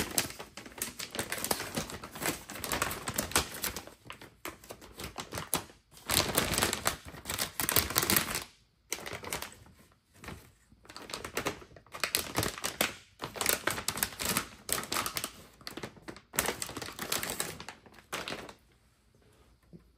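Silver anti-static shielding bag crinkling and crackling as it is handled and opened, in spells of dense crackle with short pauses between them. It dies away about a second and a half before the end.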